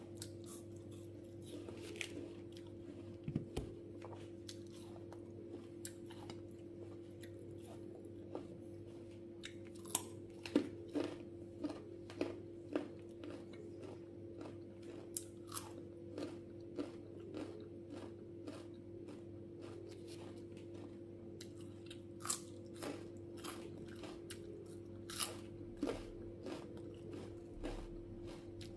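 Close-miked crisp crunching and chewing of raw apple slices, with many sharp bites at irregular intervals. A steady low hum runs underneath.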